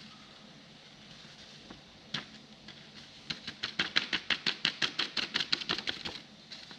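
A small vial packed with dry palladium-on-carbon powder being tapped: one sharp click about two seconds in, then a quick, even run of light clicks, about six a second, for some three seconds.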